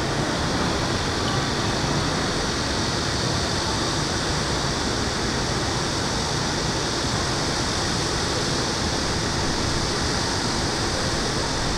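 Steady city ambience in an open plaza: an even, unbroken rushing noise of distant traffic and surroundings, with no distinct events.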